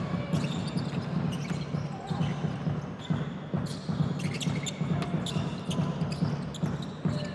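Basketball being dribbled and played on a hardwood court: a run of sharp, irregular bounces and impacts over steady low background noise in the arena.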